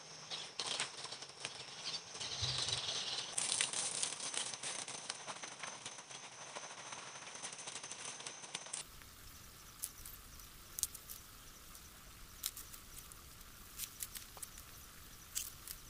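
Garden hose spraying water onto lettuce beds: a steady hiss with patter that grows brighter a few seconds in. It changes abruptly to scattered snaps and rustles of corn plants as ears of corn are picked, over a low rumble.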